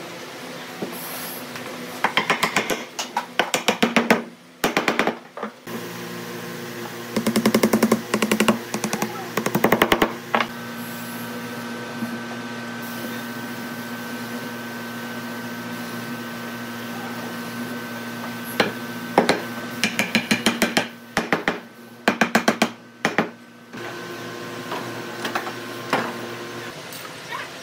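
Bursts of rapid wooden knocking and clattering as glued, dowelled planks are pushed together and set into metal pipe clamps, heard three times. Under it runs a steady workshop hum made of several fixed tones.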